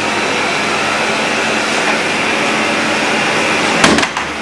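Vacuum cleaner running steadily with a constant whooshing drone. Near the end there is a single sharp knock, and the level dips briefly after it.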